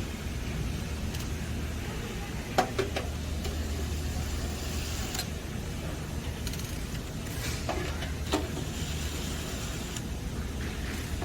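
A few sharp metallic clicks and taps from screws being taken out of the unit's sheet-metal front panel, over a steady low hum. There is a cluster of clicks about two and a half seconds in, then single clicks around five and eight seconds.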